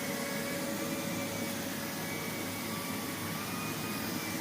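Miele Blizzard CX1 bagless cylinder vacuum cleaner running steadily, its Cat and Dog head being pushed over carpet: an even rushing hum with a steady motor tone.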